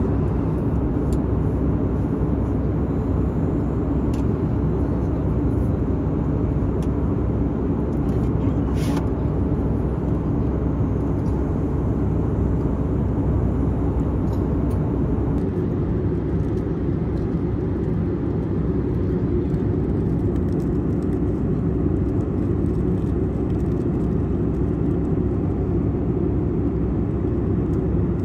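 Jet airliner cabin noise at cruise, heard from a window seat beside the engine: a steady, deep rumble of engine and airflow that does not change.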